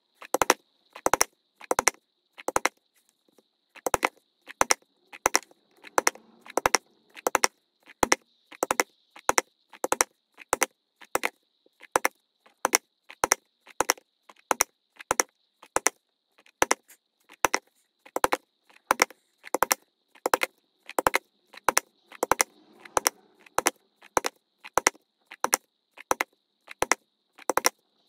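A leather-working mallet striking a tool in a steady run of sharp blows, about one and a half a second, some in quick pairs, as when punching stitching holes with a pricking iron. A faint, steady high whine sits underneath.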